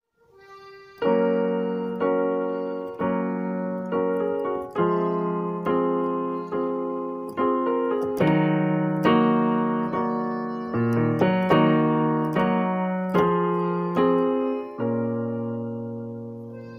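Background piano music: chords struck about once a second, each fading away, starting about a second in.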